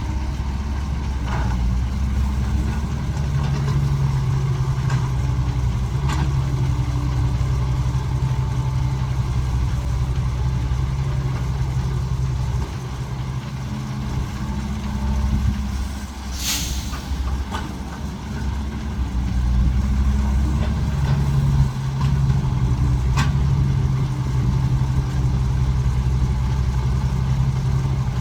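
Cat 312 hydraulic excavator's diesel engine running under load, easing off for a few seconds near the middle and picking up again, with a few light clanks and a short hiss about two-thirds of the way through.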